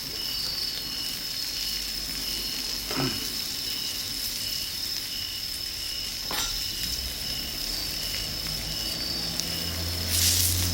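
Pork sizzling in a pan over a campfire: a steady hiss with a couple of single pops or crackles. A high chirp repeats about twice a second alongside, and near the end a louder rush with a low hum comes in.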